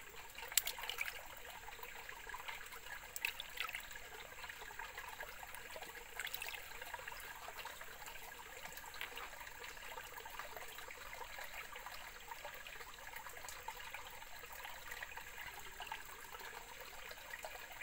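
Shallow water trickling and swishing in a black plastic gold pan as fingers work the last concentrate against the riffles, with a few soft clicks in the first several seconds.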